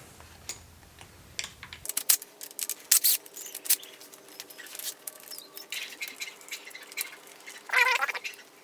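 Throttle tube and rubber grip being worked off a dirt bike's handlebar: scattered clicks and taps of plastic and metal parts being handled, with a wavering squeak near the end.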